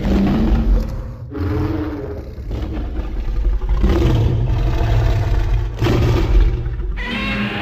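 Godzilla film sound effects: a chain of deep, rumbling monster sounds with a heavy low end. They change character about every one to two seconds, around five pieces in a row.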